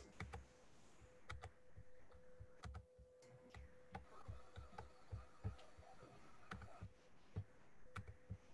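Faint, irregular clicks and taps of a computer mouse and keyboard, a few each second with short pauses between.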